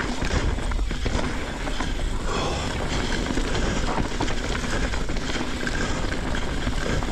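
Mountain bike ridden fast down a dirt trail: steady wind rush on the camera microphone over tyre noise, with rapid small rattles and knocks from the bike over rough ground.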